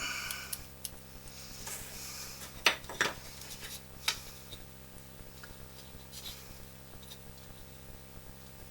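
Light workbench handling sounds: brief scratching and rubbing on a piece of wood, with a few sharp taps of tools being picked up and set down.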